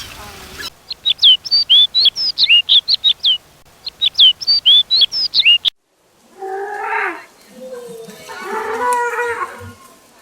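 A songbird chirping rapidly in a quick run of short, high, hooked notes for about five seconds, which cuts off abruptly. After a brief gap come two lower, drawn-out animal calls.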